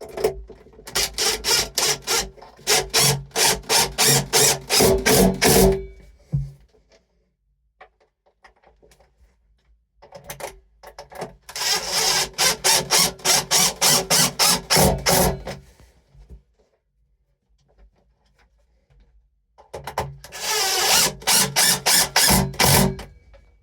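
Power drill driving screws in three runs of a few seconds each, the motor running with a fast, even rattle as each screw goes in, with pauses between.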